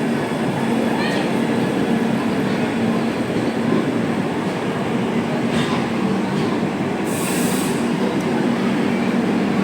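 Express passenger train running on the rails: a steady rumble of wheels and coaches with a low hum and faint clicks, and a brief high-pitched burst about seven seconds in.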